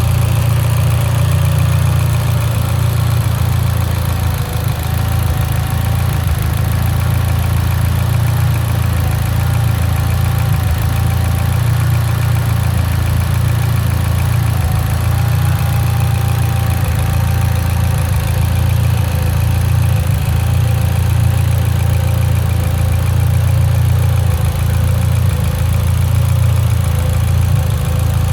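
Mitsubishi Lancer Evolution X's turbocharged 2.0-litre four-cylinder engine idling steadily with a misfire, which the owner puts down to a lean idle.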